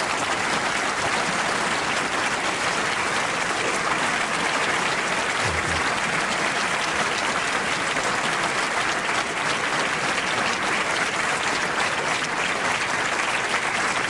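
Large audience applauding steadily.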